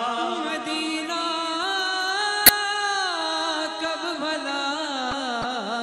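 Male voice singing a naat into a microphone, holding long notes that bend and turn in pitch. A single sharp click about halfway through.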